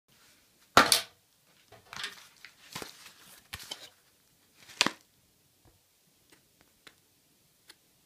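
A padded paper mailer being picked up and handled, its paper rustling and crinkling in a few short bursts, the loudest about a second in.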